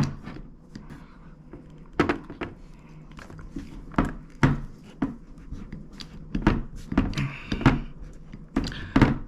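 Hydraulic crimper being worked to crimp a copper lug onto 2 gauge battery cable: a string of sharp metallic clicks and knocks at uneven intervals, about a dozen in all, some coming in quick pairs.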